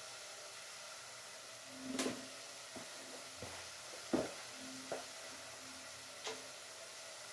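A metal spoon knocking against a pot and a plastic food container being handled and its snap-on lid pulled off: a handful of short clicks and knocks, the loudest about four seconds in, over a faint steady hiss from the stove.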